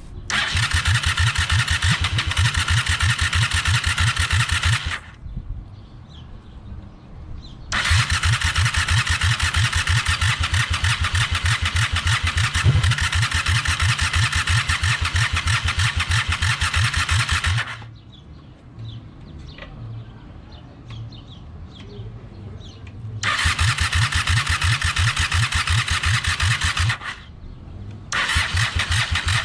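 Electric starter cranking a 1995 Honda Shadow VLX 600's V-twin in four separate tries, an even chugging of about seven strokes a second, each try stopping abruptly without the engine catching.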